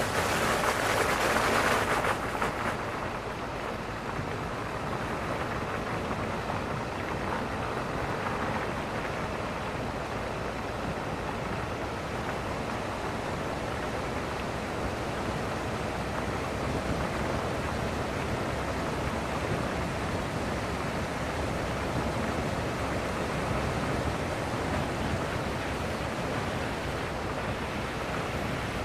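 Steady wind rush on the microphone of a camera riding on the front of a moving vehicle, louder and hissier for the first two seconds.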